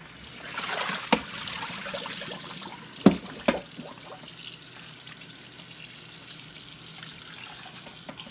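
Kitchen tap running into a stainless steel bowl in the sink while hands rinse pig feet and pig ears, washing off their salt and vinegar soak. The splashing is busier in the first couple of seconds, and three sharp knocks come about one, three and three and a half seconds in.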